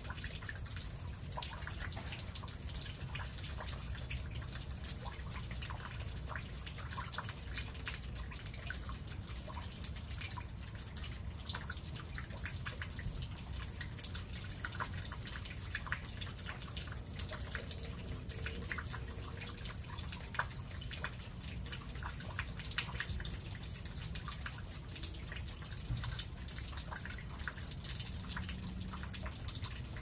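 Meltwater from thawing ice dripping off the eaves and ice-coated trees: a dense, irregular patter of many separate drips over a low steady background noise.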